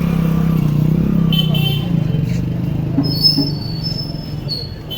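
Street traffic: vehicle engines running steadily, with short high horn toots about a second and a half in and again around three seconds in.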